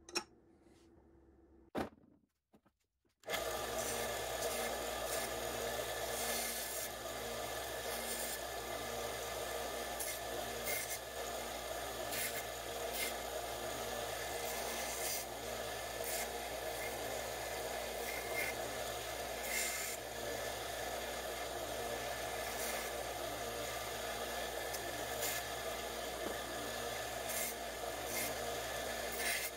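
Central Machinery bench belt sander with a narrow vertical belt, starting suddenly about three seconds in and then running steadily with a motor hum. A 3D-printed TPU part is pressed against the belt, adding an uneven rasping rub. Before it, two light clicks.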